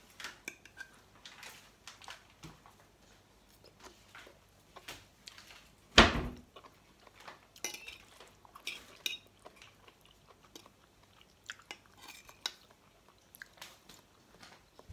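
A metal fork clinking and scraping on a china plate and a person chewing cooked mushrooms, in short scattered sounds. A sharp knock about six seconds in is the loudest sound.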